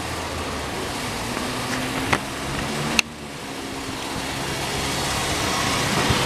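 2001 GMC Yukon's 5.3-litre V8 idling with the hood open, running with a misfire on number 6 cylinder caused by a loose spark plug. Two sharp clicks come about two and three seconds in, and after the second one the engine sound grows steadily louder.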